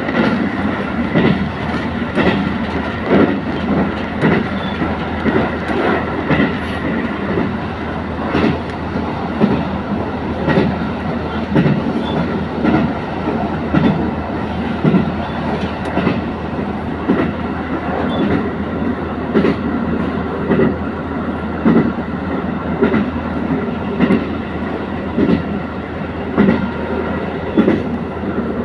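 Train rolling at speed, heard from inside the carriage: wheels clacking over rail joints in a recurring rhythm over a steady running rumble and hum.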